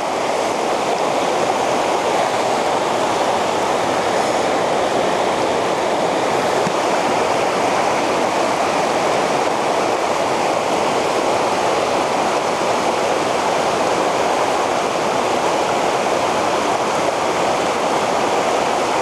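Shallow, rocky river rushing steadily over stones: a loud, even wash of flowing water.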